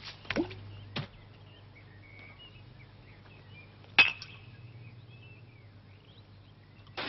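Glass bottle clinking as it is handled: a few light knocks near the start and at the end, and one loud clink about four seconds in that rings briefly.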